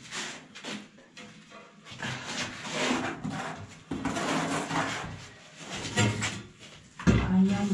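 Ceramic wall tile being handled and set into tile adhesive: scraping and rubbing with a few light knocks.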